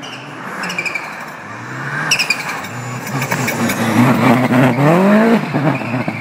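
Rally car engine approaching and passing at full speed on a forest stage, growing louder as it nears. The revs climb and drop sharply several times as it passes, with scattered sharp crackles.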